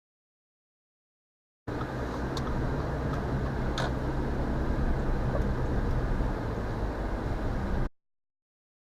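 Interior noise of a 2019 Subaru Ascent on the move: a steady drone of road and engine noise with a low hum, cutting in after about two seconds of silence and cutting off a second before the end. A faint click and then a sharper single tick come through about two and four seconds in.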